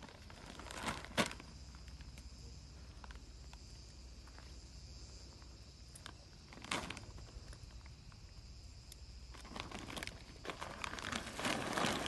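Plastic sack of dry pet food being handled and opened, with a couple of sharp crinkles, then kibble poured out onto the ground in a dense rattling stream over the last couple of seconds.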